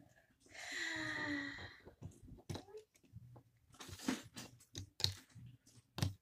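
A drawn-out sound sliding down in pitch about half a second in, then a scattered string of small sharp clicks and rattles of Lego bricks being handled.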